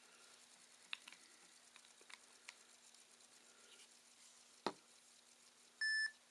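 Small clicks and taps of handling the opened ThinkPad T61 laptop, a sharper knock about three-quarters of the way through, then one short electronic beep near the end from the laptop, which is reporting a fan error.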